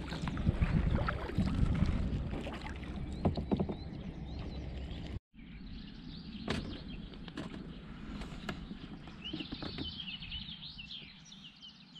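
Kayak paddle strokes dipping and splashing in calm river water, with wind rumble on the microphone, broken off by a short dropout about five seconds in. Afterwards quieter water and paddle drips, with birds chirping near the end.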